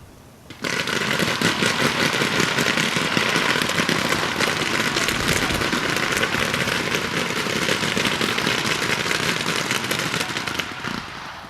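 About forty paintball markers firing at once: a dense crackle of rapid pops that starts suddenly about half a second in, holds steady for about ten seconds and thins out near the end.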